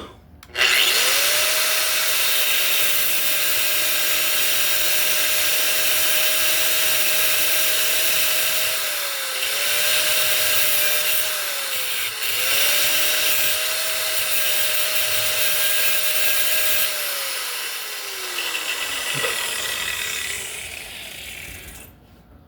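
DeWalt cutoff tool starting up and running with an abrasive cutoff wheel grinding a bevel. The motor's steady whine sags in pitch twice as the wheel bites, and near the end the tool is switched off and winds down.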